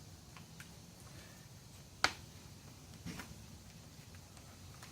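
Fabric track pieces being handled and fitted on the board: one sharp click about two seconds in, a softer knock about a second later, and a few faint ticks.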